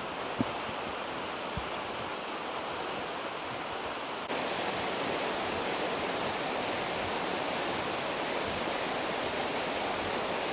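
Flash-flood water rushing across a road: a steady, even rushing noise, with a sharp tick near the start. About four seconds in it steps up to a slightly louder, denser rush that holds steady.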